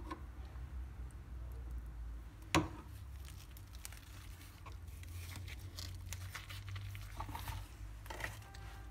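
Hands folding and rolling a baked lahmacun flatbread topped with lettuce and onion, giving soft crinkling and rustling, with one sharp click about two and a half seconds in. A steady low hum runs underneath.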